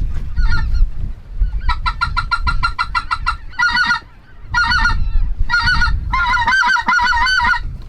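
Goose honking: a short call, then a fast run of short honks at about eight a second, then four bursts of honks and clucks, the last one the longest.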